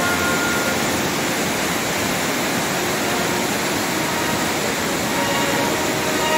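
Mountain torrent rushing through a narrow rocky gorge: a steady, even noise of white water. Background music fades out within the first second and returns faintly near the end.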